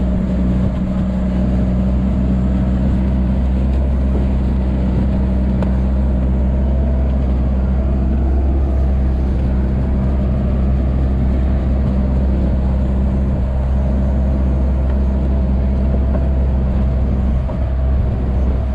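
Sherp all-terrain vehicle's diesel engine running at a steady speed as the vehicle drives across lake ice, a constant low drone.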